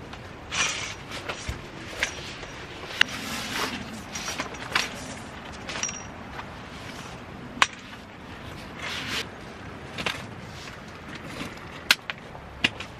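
A folding camping cot being set up: the cot's fabric rustles and swishes as it is handled, broken by several sharp clicks and knocks from the metal frame and legs, the loudest about three, seven and a half and twelve seconds in.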